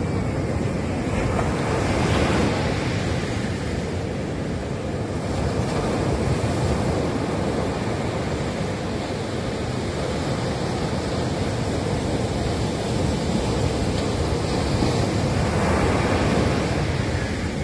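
Ocean surf breaking on a sandy beach: a steady rushing wash of waves, swelling as a breaker comes in about two seconds in and again near the end.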